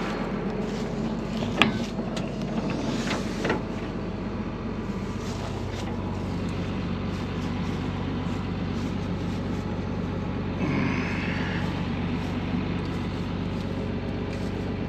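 Farm tractor engine running steadily, with two sharp clicks about one and a half and three and a half seconds in.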